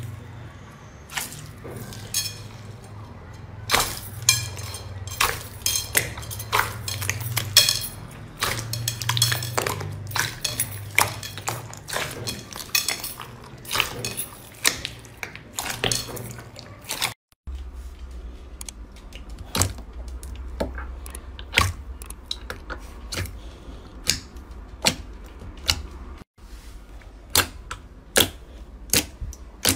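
Hands squishing and pressing crunchy slime full of small beads in a glass bowl, giving a dense run of crackling clicks. After a cut about 17 s in, fingers poke and stretch white fluffy slime, making sparser sharp popping clicks. A low steady hum runs underneath.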